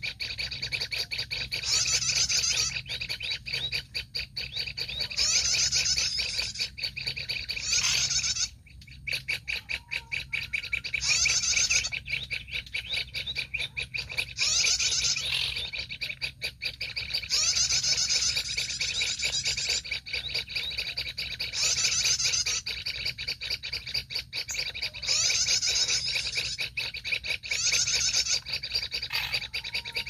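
Reed warbler (kerak basi) song: harsh, fast chattering phrases of about a second, repeated every couple of seconds, with a fainter rapid chatter between them.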